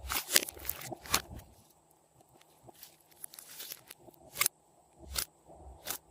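Glossy slime being squeezed and stretched by hand, giving sticky clicks and pops. They come in a busy cluster at first, then as scattered single pops.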